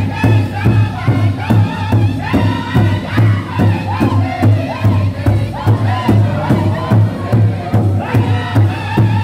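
A powwow drum group singing an intertribal song: several men strike one large powwow drum in a steady beat of about two to three strokes a second and sing together in high voices. The melody falls in phrases, and near the end it leaps back up to a high pitch to start a new phrase.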